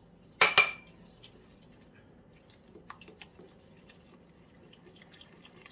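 Wooden spoon stirring sugar into egg yolks in a ceramic bowl: faint wet squishing with light scattered ticks of the spoon against the bowl. About half a second in comes one sharp clink with a brief ring.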